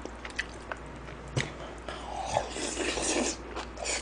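Close-miked eating sounds: chopsticks and a spoon lightly clicking against a plate of jjajang rice, with one sharper click about a second and a half in, then a scraping, rustling stretch of about a second as food is stirred and scooped.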